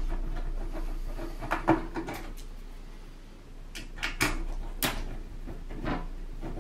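Scattered sharp clicks and light knocks as small screws are worked out of the rear of a Sony CMT-CP33MD hi-fi unit's case by hand and screwdriver, about half a dozen spread over the few seconds.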